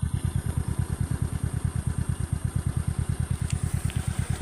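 Engine idling with a steady low pulse of about ten beats a second.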